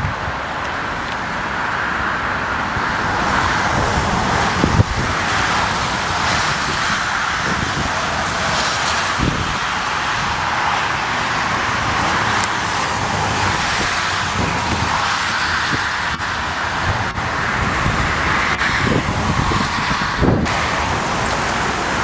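Steady noise of a twin-engine jet airliner's turbofan engines at high power, mixed with gusty wind buffeting the microphone. The sound changes abruptly near the end.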